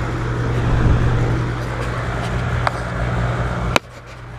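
Goodman air conditioner running just after restart with its newly tested run capacitor and hard start kit: a steady low compressor hum under condenser fan air noise, the unit started and cooling normally. A sharp click near the end, after which the sound is suddenly much quieter.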